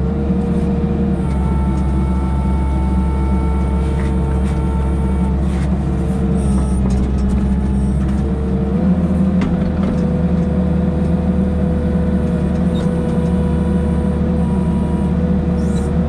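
Excavator engine running with a steady hydraulic whine while it digs out the hole, its pitch stepping up slightly about halfway through, with a few faint clicks.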